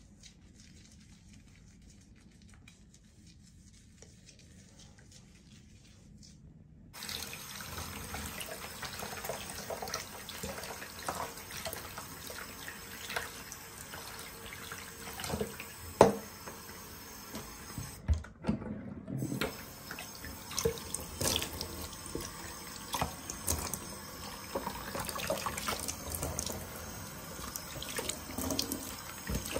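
Quiet at first, then a bathroom sink's single-lever mixer tap comes on suddenly about a quarter of the way in. Water runs steadily into the basin, splashing irregularly as a hand is wetted under the stream, with a short break about two-thirds of the way through.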